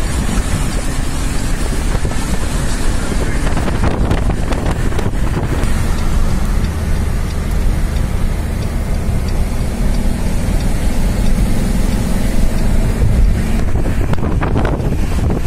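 Steady road and engine rumble from inside a moving car, with wind buffeting the microphone.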